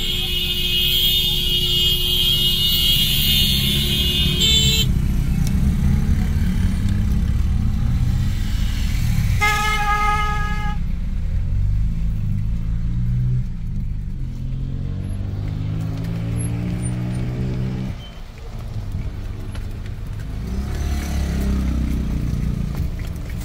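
Car cabin with the engine and tyres rumbling at low speed on a dirt road, and a high hiss that stops about five seconds in. About ten seconds in, a vehicle horn toots once for about a second. Later, a pitched note rises over a few seconds and then cuts off abruptly, like the engine being revved.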